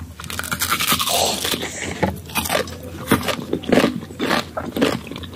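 Crisp bites and crunchy chewing of unripe green mango slices right at the microphone, a run of short irregular crunches.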